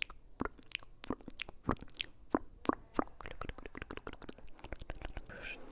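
Close-miked ASMR trigger sounds: a rapid, irregular run of crisp clicks and crackles, with a short breathy sound near the end.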